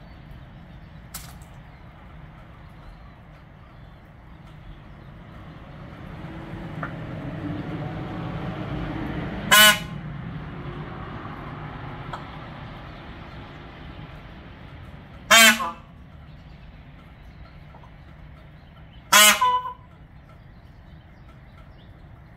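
Male Indian peafowl (peacock) giving three short, loud calls several seconds apart, the last one doubled. A low rumble swells and fades in the background before the first call.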